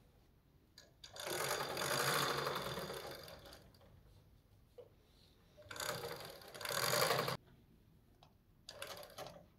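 A small machine whirring in three short runs, each of a second or two, the second one cutting off suddenly and the last one weaker.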